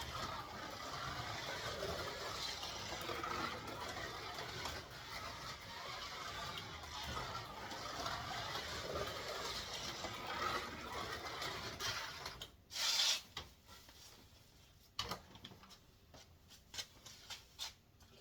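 Scalextric slot car lapping the plastic track: its small electric motor whirs along with the pickup and tyre noise, rising and falling as the throttle changes. About 12 s in the running stops, followed by a loud brief clatter and then a few light clicks and knocks.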